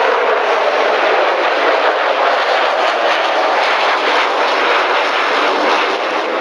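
Concorde's four Rolls-Royce/Snecma Olympus 593 turbojets passing low overhead on landing approach: loud, steady jet engine noise that eases slightly near the end as the aircraft moves away.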